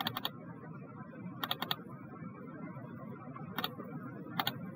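Computer mouse clicks: small clusters of quick, sharp clicks, about four times, over faint steady background noise.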